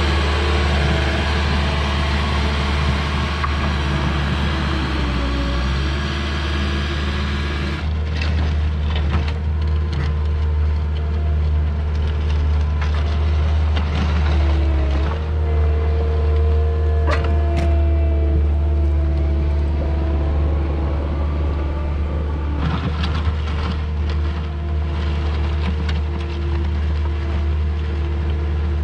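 Cat 308 mini excavator's diesel engine running steadily under load. Its hydraulic whine shifts and steps in pitch as it works, with scattered sharp cracks and knocks from about eight seconds in.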